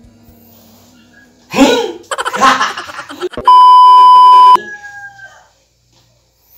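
A rooster crowing, then a loud, steady test-pattern beep lasting about a second, the tone laid under glitching TV colour bars.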